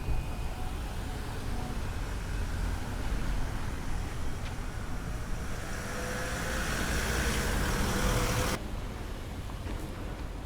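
Road traffic: a motor vehicle drives close by, its engine and tyre noise growing louder over several seconds before cutting off suddenly near the end.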